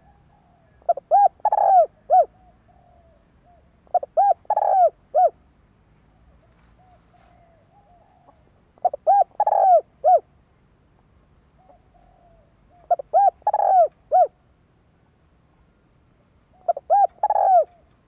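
Spotted dove singing: five phrases about every four seconds, each a quick run of short coos around one longer coo, with soft quiet notes between the phrases.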